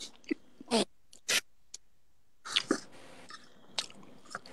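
A few short, quiet voice sounds and breathy hisses, with a couple of faint clicks between them.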